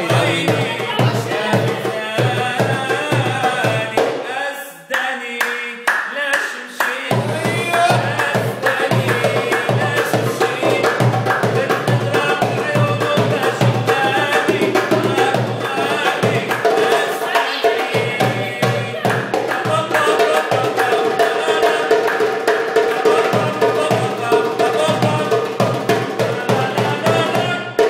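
Live darbuka drumming in a fast Middle Eastern rhythm, with a second hand drum and a melody over it. The deep strokes stop for about two seconds around five seconds in, then the full rhythm comes back.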